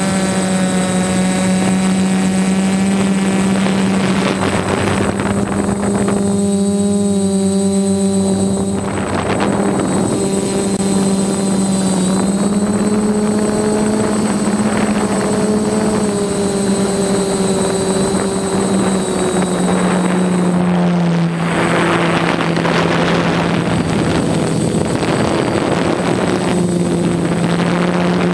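Electric motors and propellers of a multirotor drone buzzing steadily, heard from the camera mounted on the aircraft. The pitch drifts slightly up and down as the motors change speed, with a rushing hiss of airflow over the microphone that thins briefly and grows stronger near the end.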